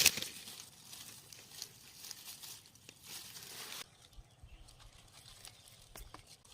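Digging and rustling in dry soil and dead leaves. There is a sharp knock right at the start, then a rustling, scraping hiss that dies away about four seconds in, leaving a few faint clicks.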